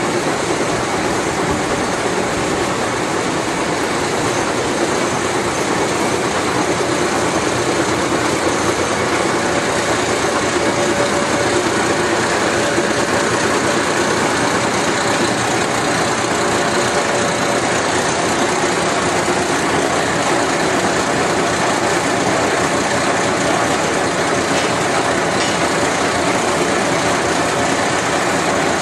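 GE/Fitchburg horizontal spline and pinion hobber running under power: a steady mechanical drone from the motor and gearing, even and unbroken, with a faint steady tone in it.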